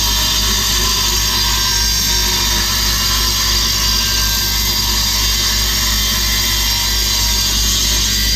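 A woodworking power tool running steadily, cutting wood, and stopping abruptly at the end.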